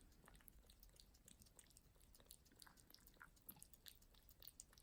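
Cat chewing soft wet cat food with gravy: faint, irregular wet clicks and smacks of eating.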